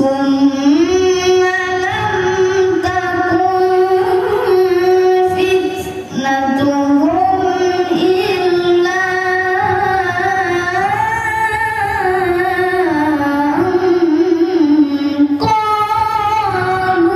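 A boy reciting the Quran in the melodic tilawah style into a microphone over a PA: long held, ornamented notes that climb and fall. He pauses for breath briefly about six seconds in and again near the end.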